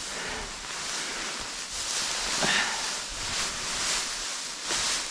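Hay rustling close to the microphone as an armload is handled and spread, in uneven swells.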